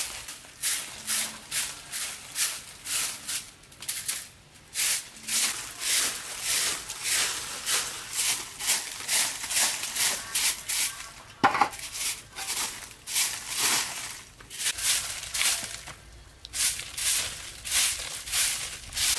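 Broom sweeping dry leaves and grit on bare dirt, a quick swish with each stroke at about two strokes a second, pausing briefly twice. One sharper knock about midway.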